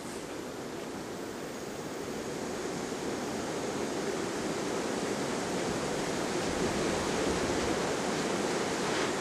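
Strong blizzard wind blowing steadily, a gust building and growing louder.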